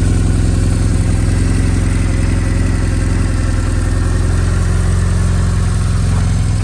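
BMW R1100S Boxer Cup replica's air/oil-cooled flat-twin boxer engine idling steadily.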